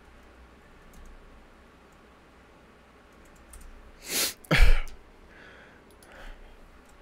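Faint computer keyboard clicks as a search is typed, and about four seconds in a short, loud burst of breath from the person at the desk, in two quick parts.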